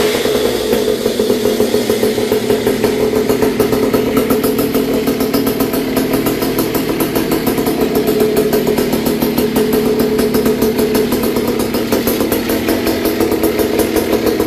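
Small two-stroke engine of a Goped-style stand-up scooter running steadily at a constant speed, without revving.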